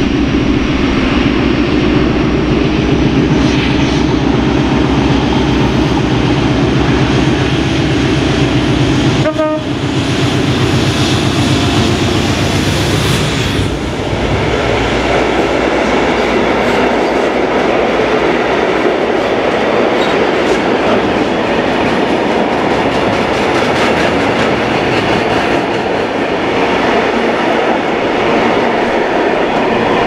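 Class 56 diesel locomotive's V16 engine working hard under power as it pulls away with a heavy loaded log train. About 14 s in the engine note drops away and the rolling and clatter of the loaded timber wagons over the rails takes over.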